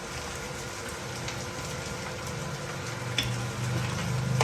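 Goat brain sizzling in hot mustard oil in a frying pan: a steady frying hiss with scattered crackles. A low hum grows louder in the last second or so.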